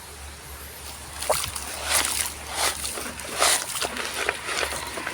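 Water splashing and sloshing in several quick strokes as muddy toy vehicles are washed by hand, over a steady low hum.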